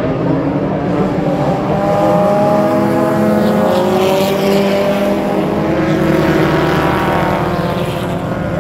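Several small race-car engines running hard on a dirt oval, their pitches rising and falling as the cars lap. The sound swells in the middle as one car comes down the near straight.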